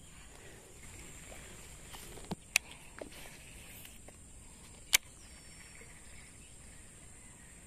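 Quiet swamp ambience with a steady high-pitched insect drone, broken by a few sharp clicks, the loudest about five seconds in, and a brief faint high chirp just after it.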